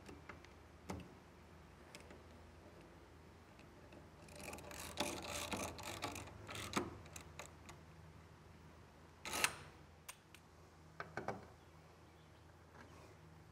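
Hand-tool work on a wooden boat hull: a run of rapid clicking lasting about two and a half seconds from about four seconds in, a single sharp, loud knock about nine seconds in, and a few short clicks a couple of seconds later.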